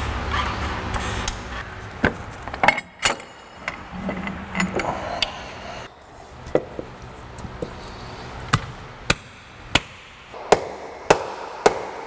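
Hand tools and metal engine parts knocking and clinking during engine reassembly: a dozen or so sharp, irregular knocks. A low hum at the start stops after about a second.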